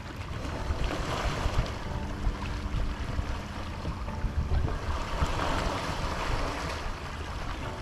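Small sea waves washing and splashing against a rocky shoreline, with wind buffeting the microphone.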